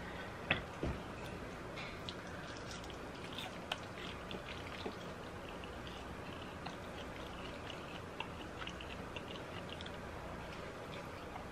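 Faint mouth sounds of someone eating birria ramen noodles, with soft chewing and wet squishy bites. Near the start there are a couple of small knocks of a fork or food against a glass bowl or plate.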